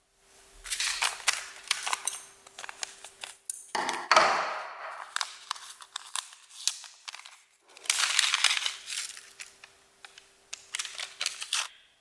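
Crinkly packaging being handled and unwrapped, in two long spells of dense crackling, with a louder rustling rip about four seconds in.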